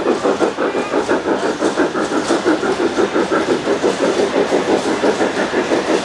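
Large-scale model train running on the layout, giving a fast, even rhythmic clatter of about six beats a second that stays steady throughout.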